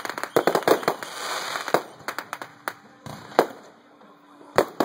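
Aerial fireworks bursting overhead. A rapid string of sharp cracks comes in the first second, followed by the hiss of the burst and single loud bangs roughly every second or so.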